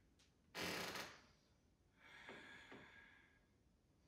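A person's breathing close to the microphone: one sharp, loud exhale about half a second in, then a softer breath about two seconds in.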